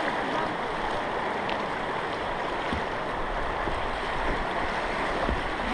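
Steady rushing of river water through a long, shallow rocky riffle around an inflatable boat, with a few faint knocks.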